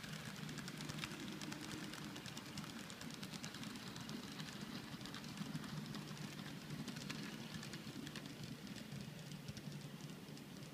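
N scale model coal train of hopper cars rolling past: a steady clatter of small metal wheels on the track with rapid clicks at the rail joints, over a low steady hum. It eases off slightly near the end as the last cars go by.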